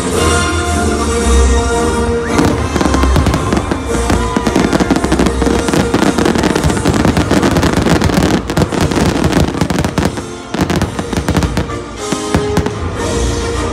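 Aerial fireworks shells bursting in a rapid barrage with dense crackling, loudest from about two seconds in until about ten seconds, over music that plays throughout.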